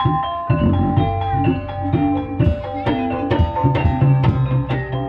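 Javanese gamelan music for an ebeg dance: struck keyed instruments ring out a fast run of interlocking notes over the beats of a hand drum.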